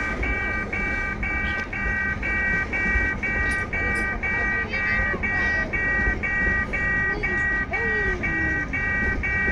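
Loaded freight wagons rolling past with a continuous low rumble of wheels on rail. Over it, a level-crossing warning bell beeps steadily, about three times a second.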